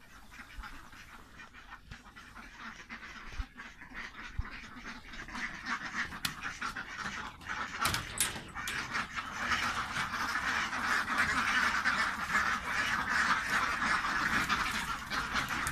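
A flock of domestic ducks quacking together in a dense, continuous chorus that starts faint and grows much louder from about halfway through. A few sharp knocks sound near the middle.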